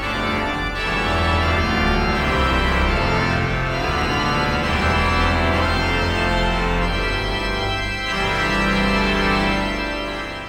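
Organ music: sustained chords over a changing bass line, cutting off right at the end.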